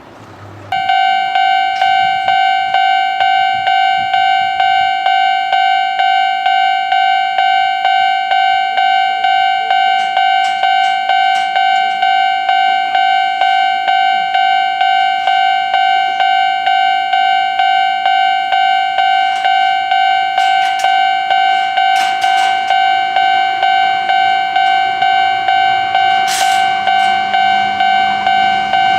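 Japanese level-crossing electronic warning bell starts just under a second in and rings steadily, about two rings a second. It is the crossing alarm warning that a train is approaching.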